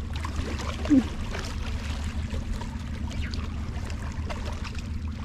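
A steady low motor hum with small water sounds lapping and trickling against the rocks at the waterline.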